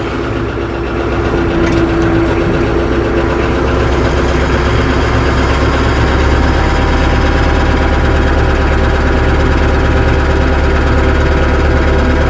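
Tractor engine running steadily at low speed as the tractor creeps forward onto a laid-out tire chain, its low rumble growing stronger partway through.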